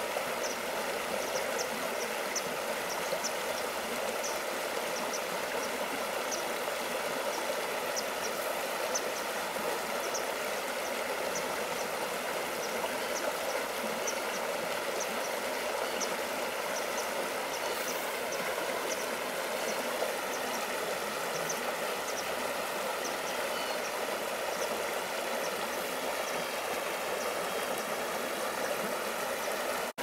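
Shallow stream water running and rippling over rocks, a steady rushing hiss. A bird chirps behind it, a short high note repeated about once or twice a second.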